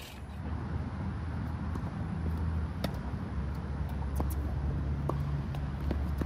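Steady low rumble of a vehicle engine running, with several sharp pops of a tennis ball struck by rackets.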